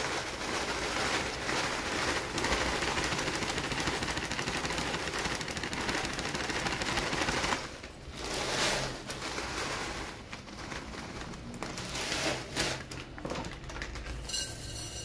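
Dry textured soy protein granules pouring from a plastic bag into a ceramic mug: a dense, rapid rattle for about seven and a half seconds, then shorter pours. Near the end the mugful of granules rattles into a glass bowl.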